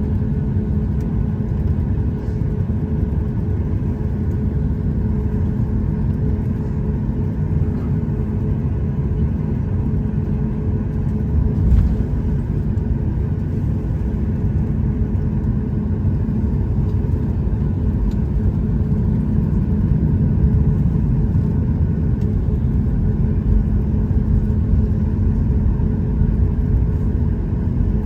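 Steady low rumble inside the cabin of a Boeing 737-8 MAX with its CFM LEAP-1B jet engines running, a few steady hums riding on it. A single short thump about twelve seconds in.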